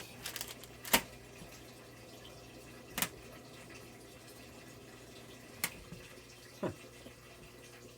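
A few sharp clicks of small metal hardware being handled and set down, the nuts and bolts left over from assembling a metal tool shelf, with a short scraping slide near the end. A steady hum runs underneath.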